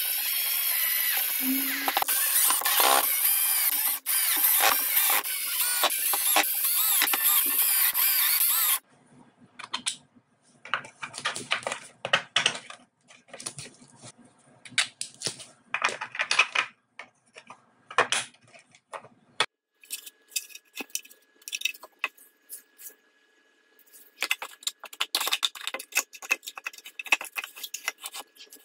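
Cordless drill driving screws into a 3D-printed plastic tank hull. The motor runs loudly for about nine seconds, with a short pause near four seconds. It stops abruptly, and scattered clicks and rattles of plastic parts being handled follow.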